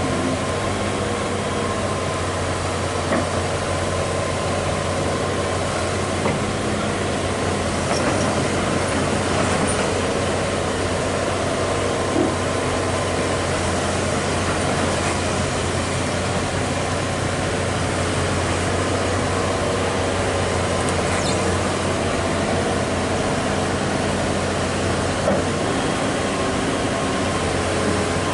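Heavy diesel engine running steadily at an even, unchanging speed, with a few faint knocks along the way.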